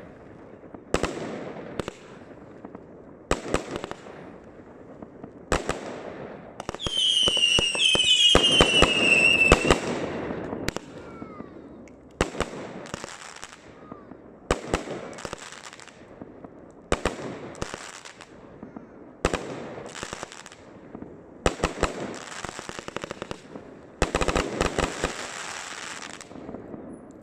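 Aerial fireworks going off in quick succession, each shot a sharp bang with its burst, about one every second or two. About a quarter of the way in, a dense salvo brings several shrill whistles sliding downward, and near the end come long stretches of crackling from glittering crackle stars.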